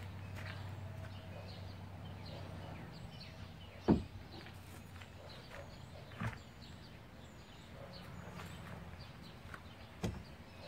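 Wooden stair stringers and boards being handled and knocked against a wooden porch deck: three separate knocks, the loudest about four seconds in, another a couple of seconds later and one near the end. A low steady hum fades out after the first few seconds, and faint bird chirps are heard throughout.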